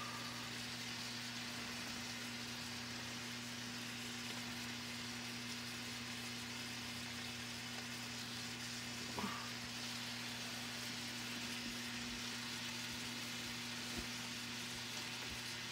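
Mixed vegetables sizzling steadily in coconut oil in a hot electric wok, an even hiss with a steady low hum under it.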